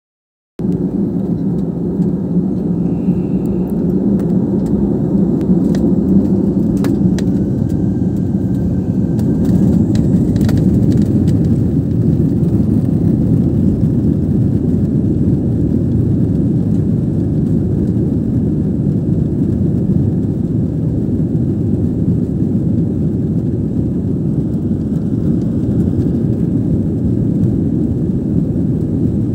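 Cabin noise of an Airbus A320-family jetliner on its takeoff roll: the engines run with a loud, steady low rush as the aircraft gathers speed along the runway. A few faint clicks come between about seven and eleven seconds in.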